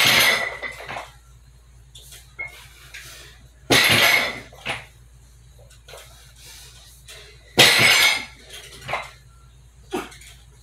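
Loaded barbell with weight plates set down on a wooden floor between straight-leg deadlift reps. There are three loud metallic clanks with a brief ring, at the start, about four seconds in and about seven and a half seconds in, each followed by a quieter knock.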